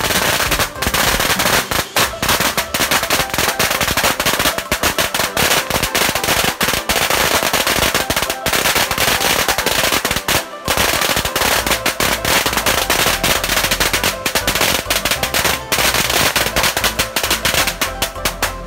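A long string of Chinese firecrackers hanging from a tree going off in a rapid, continuous crackle of bangs, with a brief pause about ten seconds in.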